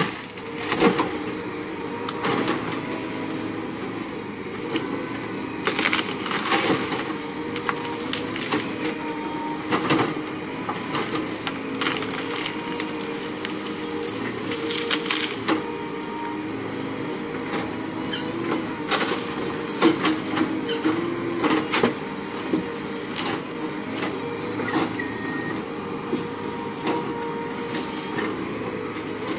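CAT tracked excavator's diesel engine running steadily, its note shifting as it works. Over it, repeated sharp cracks and snaps of tree limbs and trunks breaking under the bucket come every few seconds.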